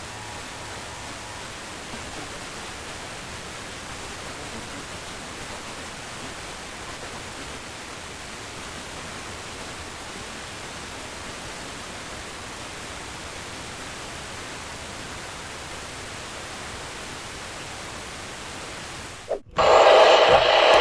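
Steady hiss of radio static. Near the end it cuts off sharply and a loud electronic signal made of several steady tones starts.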